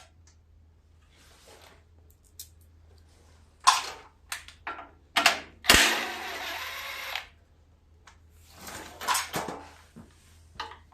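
Metal hand tools clinking and a socket ratchet clicking while small bolts on a garden tractor's sheet-metal engine shroud are worked loose: a scatter of sharp clinks, with a longer run of ratcheting about six seconds in. A faint steady hum underneath.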